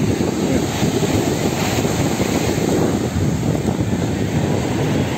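Wind buffeting the microphone at the seashore, a steady low rumble that covers everything else.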